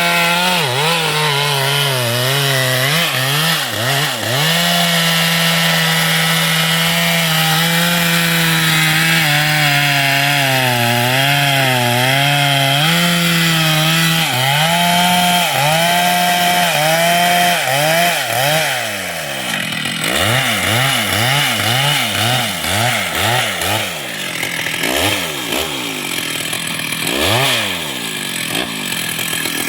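Chainsaw at full throttle cutting wood, its pitch sagging under load several times. About two-thirds of the way through it drops off the cut and is revved up and down in quick repeated blips.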